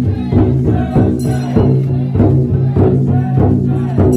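Large taiko drum on a chousa festival float (taiko-dai) beaten in a steady rhythm, about two strokes a second, each stroke ringing out with a falling pitch.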